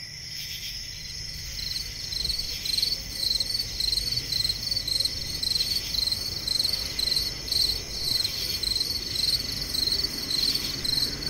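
Crickets chirping in a steady, even run of high chirps over a continuous higher trill of other insects.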